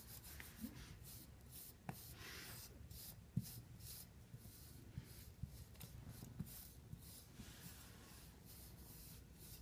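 Faint, repeated scratchy strokes of a pin brush drawn through a Siamese cat's fur, with a couple of soft ticks in the first few seconds.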